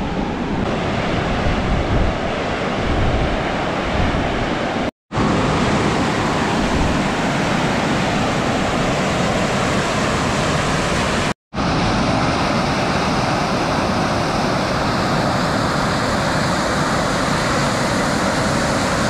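Water jetting out of an outlet at the base of a concrete dam and crashing into the river below: a loud, steady rush. It cuts out for a split second twice, about five and eleven seconds in.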